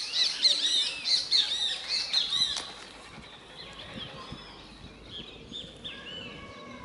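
Birds chirping: a dense run of quick, arched chirps for the first two and a half seconds or so, then scattered, fainter calls.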